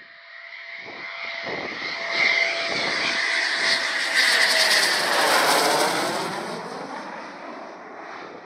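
Eurofighter Typhoon's twin jet engines passing low overhead on landing approach with the gear down: the jet noise and a whine build to a peak about midway, then the pitch drops as the aircraft passes and the sound fades away toward the runway.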